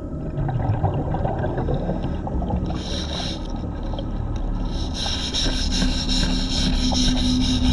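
Underwater scraping and rubbing as a diver works a serrated hand scraper against a piling, over a steady low rumble of water noise, with a brief hiss about three seconds in. From about five seconds in, music with a fast even pulse and a held low note comes in.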